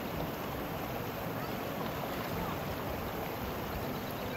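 Steady rushing of a shallow river running over stones.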